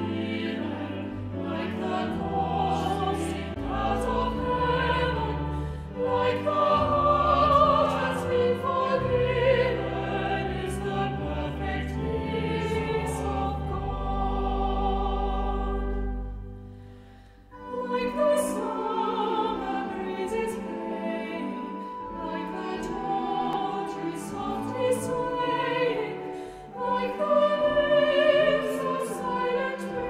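Choir singing a hymn verse in harmony over sustained low accompaniment notes, recorded remotely and mixed together. The verse closes on a held chord that fades briefly about halfway through, then the singing comes back in with the next verse.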